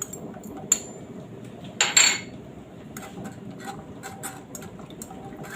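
Kitchen utensils clinking and scraping against a cooking pot as a garlic clove goes in. There is a sharp clink just under a second in, a louder scrape about two seconds in, then light scattered ticks.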